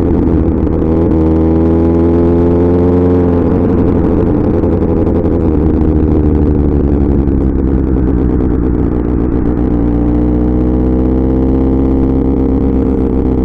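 Kawasaki Ninja ZX-6R's 636 cc inline-four engine running through an SC Project exhaust while riding. The revs rise about a second in, fall back a couple of seconds later, then climb slowly again near the end.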